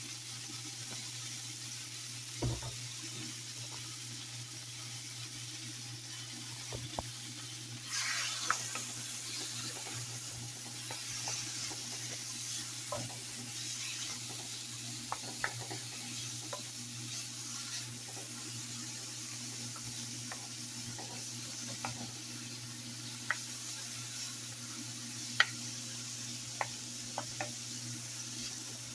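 Beef steak pieces sizzling in butter in a frying pan, stirred and turned with a wooden spoon that scrapes and taps the pan now and then. The sizzle swells louder about eight seconds in.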